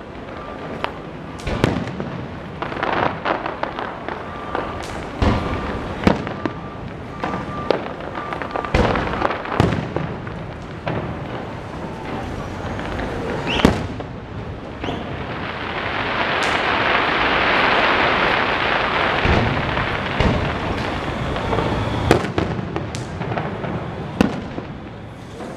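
Fireworks going off: a steady run of sharp bangs and booms. A rush of noise swells up and fades away in the second half.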